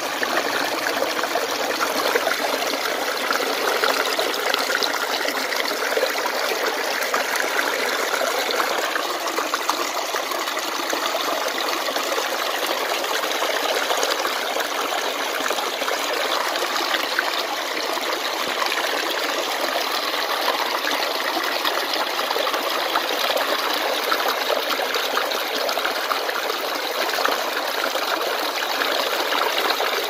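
Mountain stream water cascading over rocks in a small falls, splashing steadily and close by.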